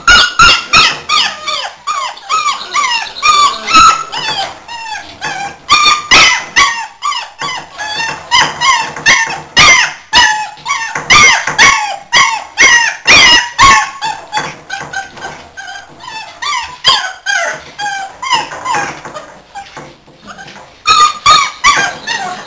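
A litter of American Staffordshire terrier puppies yelping and barking almost without a break, several short high calls a second, as they play-fight. There is a brief lull about twenty seconds in.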